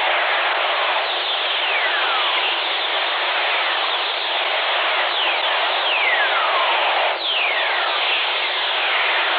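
Very-low-frequency radio recording of lightning-generated whistlers: a steady static hiss crossed by repeated falling whistles, each gliding from high to low pitch in about a second. The strongest whistle comes about seven seconds in.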